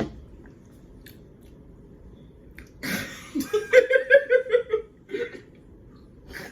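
A person laughing in a short run of about six quick 'ha' pulses in the middle, the loudest sound here, with a sharp click right at the start.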